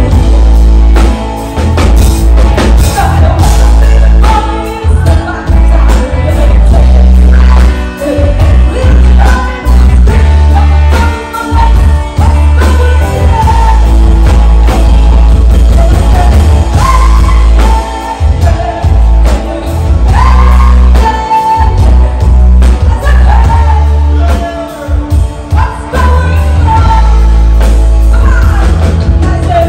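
Live rock band playing loudly, with a woman singing lead over electric guitars, bass guitar and drums.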